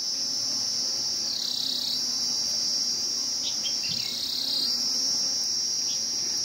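Steady high-pitched chirring of insects, dipping slightly lower in pitch twice, over a faint low buzzing of honeybees clustered on a wall with a bee-hunting wasp hovering in front of them.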